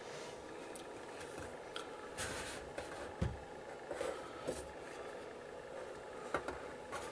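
Handling noise as a benchtop oscilloscope is tilted up and shifted about on a work mat: faint rubbing and scraping with several small clicks and knocks, and a low thump about three seconds in.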